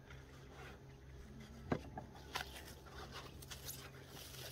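Faint rustling and light clicks of a plastic bag of cut beef being handled, with one sharper click a little before halfway, over a low steady hum.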